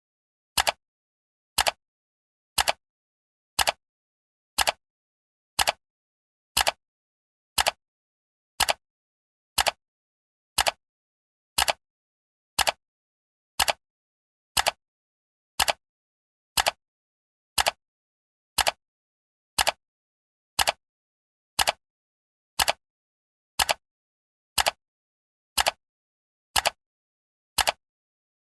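Clock-style ticking of a countdown timer: one short, sharp tick every second, evenly spaced, with silence between the ticks.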